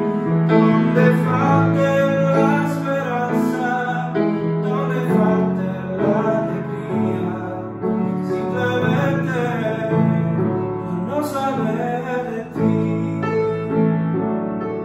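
Electric keyboard playing a slow accompaniment of held piano chords, with a man singing over it at times.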